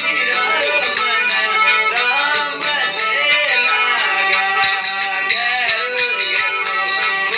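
A man singing a devotional bhajan melody over the drone of a strummed tandura, a long-necked folk lute. A quick, steady run of rattling clicks keeps the beat.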